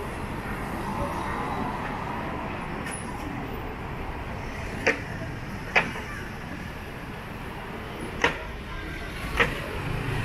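Steady city street noise with vehicle traffic, broken by four sharp, short clacks at uneven intervals in the second half.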